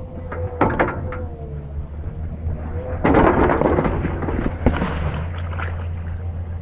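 Komatsu PC200 excavator's diesel engine running with a steady low hum and a steady whine. About three seconds in, a loud crackling rush of broken ice and slush crunching lasts a second or so, with a few sharp cracks.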